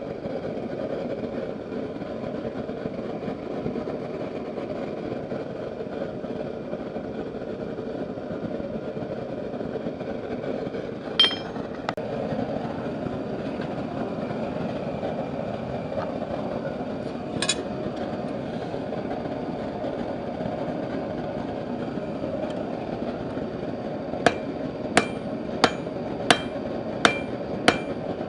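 Steady roar of a forge. Over it, a hammer clangs on steel at the anvil: two single ringing strikes, then a regular run of strikes about 0.7 s apart near the end.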